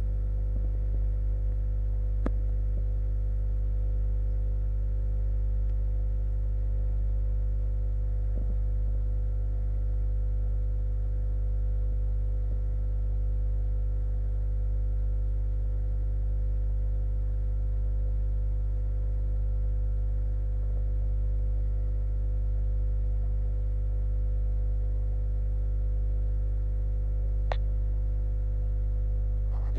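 Steady electrical hum of running aquarium equipment, unchanging throughout, with two faint clicks, one a couple of seconds in and one near the end.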